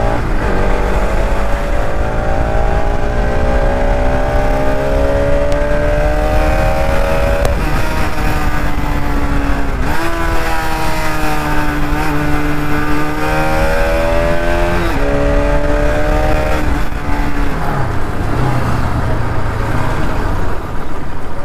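Bajaj Pulsar RS200 motorcycle's 200 cc engine under way: revs climb steadily for several seconds, then the pitch steps up and down through a series of gear changes and drops to a low, idle-like tone near the end as the bike slows. A steady low wind rumble runs underneath.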